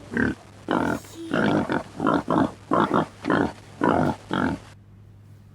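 Domestic pig grunting and oinking, about ten short grunts in quick succession that stop shortly before the end.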